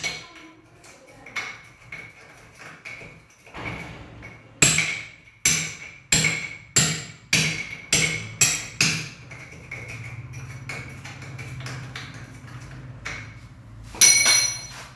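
Hammer blows on the wooden door frame while cutting the recess for a door lock's strike plate: sharp knocks, each with a short metallic ring, coming about every half second in the middle, then after a pause one loud ringing strike near the end.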